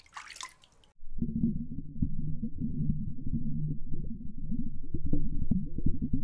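Muffled, underwater-sounding low rumble with a steady low hum and a stream of short bubbling crackles, starting about a second in after a brief splash-like sound.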